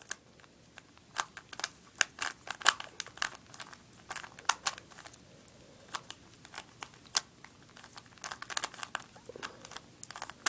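Plastic 3x3 Rubik's cube being turned quickly through an algorithm, its layers clicking and rattling in quick irregular bursts.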